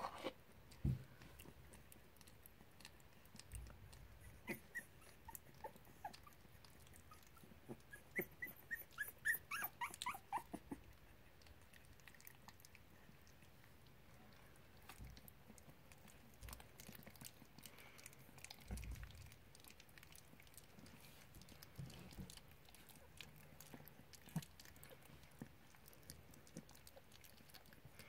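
Young puppies whimpering in a run of short, high squeaks about a third of the way in, with faint scattered clicks as they lap at a food bowl.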